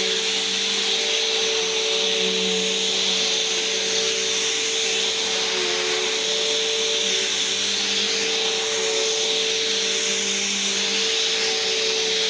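Vacuum cleaner running steadily, a continuous rushing whir with a steady hum tone.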